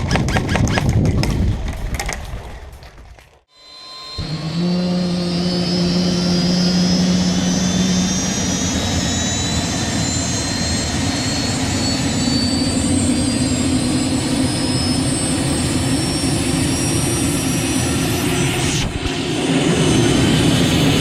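Music fades out over the first few seconds. Then a steady engine drone starts, with a low hum and a high whine that slowly rises in pitch.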